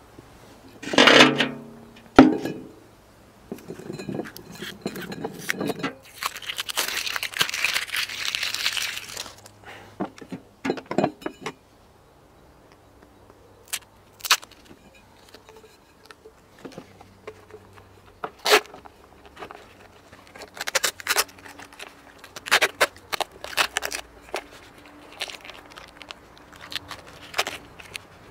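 Adhesive tape being pulled off the roll: a squealing rip about a second in and a longer rasping pull a few seconds later, followed by scattered clicks, crinkles and taps as the tape is torn and wrapped around a steel tube and a hair dryer.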